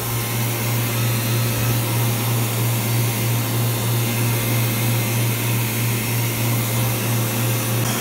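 Refrigeration vacuum pump running steadily with a constant low hum, evacuating an air-conditioning refrigerant circuit, its gas ballast being closed to pull a deeper vacuum.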